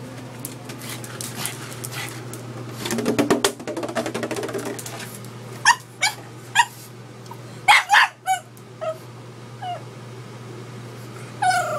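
Pug barking at a plastic gallon water jug in short, high yips, grouped in twos and threes, with a longer falling whine near the end. About three seconds in, a rattling scuffle comes before the barking starts.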